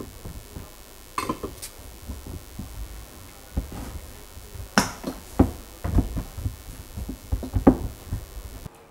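Hand kneading and punching down risen dough in a stainless steel bowl: irregular soft thumps with several sharper knocks against the bowl, stopping abruptly just before the end.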